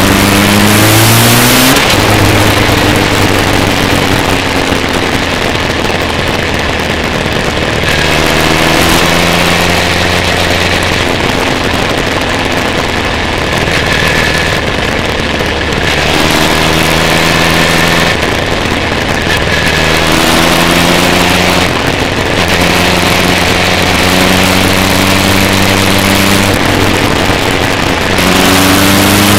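Motorcycle engine heard from on board while riding, pulling through the gears: its pitch rises and then drops at each gear change, several times over, with wind rushing over the microphone.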